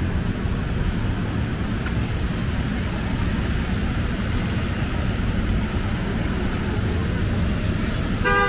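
City street traffic on rain-wet pavement: a steady rumble of cars with tyre hiss. A car horn honks right at the end.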